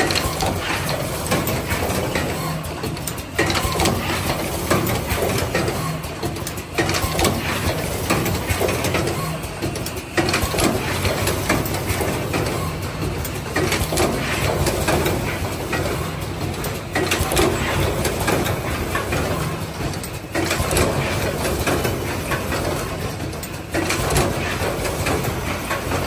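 Automatic power-cord processing machine running, its pneumatic heads and indexing clamp conveyor clattering and clicking continuously. A short lull comes round about every three and a half seconds as the machine cycles.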